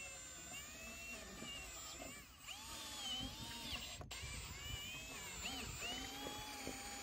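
Milwaukee cordless drill spinning a rasp bit to widen a hole in a boat deck. Its motor whines, the pitch rising and falling again and again as the speed changes under load.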